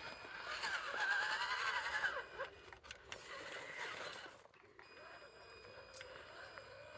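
Electric motor and gearbox of an RC rock crawler whining, its pitch rising and falling with the throttle, over scraping as it drives. It is loudest in the first few seconds and quieter and lower after about four and a half seconds.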